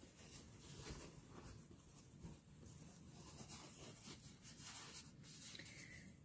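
Faint rubbing and light clicks as a leathery ball python egg is handled in the hand, with small scissors snipping into the soft shell in the second half.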